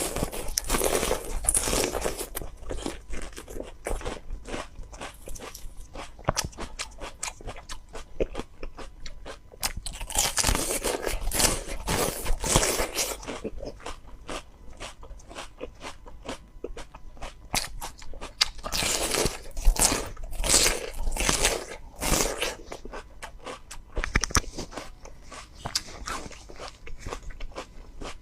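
Close-up crunching of bitter melon being bitten and chewed, a dense run of crisp crunches with louder spells at the start, about ten seconds in and about twenty seconds in.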